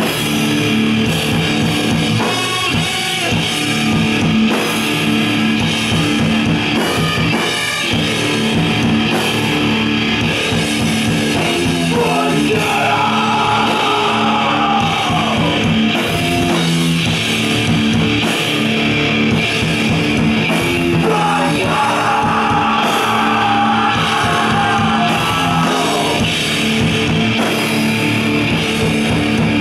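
Live rock band playing loud: electric guitars and a drum kit, with a singer's vocals.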